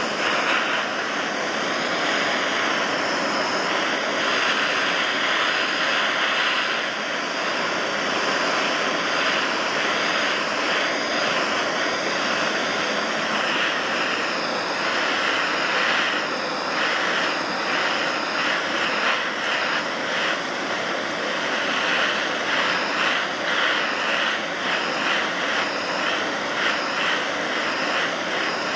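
Handheld gas torch burning with a steady loud hiss, its flame played on the hot cylinder of a running Stirling engine. The rush grows a little more uneven in the second half.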